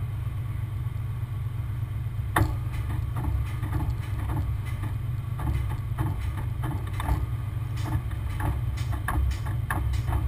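Heavy truck diesel engine running steadily at a low rumble, with scattered knocks and clanks; the loudest knock comes about two seconds in.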